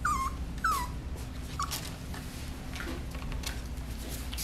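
Yorkshire terrier puppy whimpering: short high whines that each fall in pitch, three in the first couple of seconds, the last one shorter.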